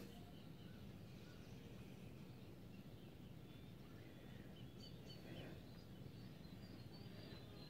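Near silence: a faint, steady low background noise with scattered small bird chirps, more frequent from about halfway through.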